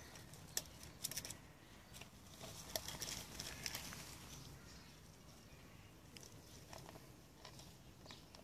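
Ferrets scampering over gravel and around a corrugated plastic drainage pipe: faint scattered crunches and clicks of paws on stones, busier in the first half.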